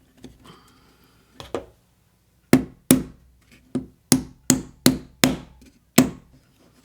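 About eight sharp wooden knocks, irregularly spaced, after a couple of softer ones: small wooden kit pieces being tapped down to force their pegs into holes that they won't go into.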